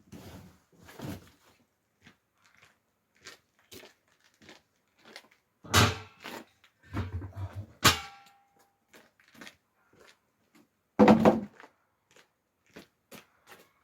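Scattered knocks and clicks, with three louder thumps about six, eight and eleven seconds in.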